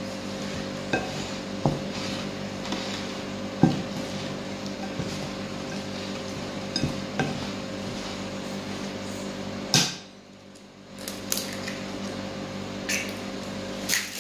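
Wooden spoon stirring a wet tuna-ball mixture in a glass bowl, with scattered sharp knocks of the spoon against the glass, over a steady low hum.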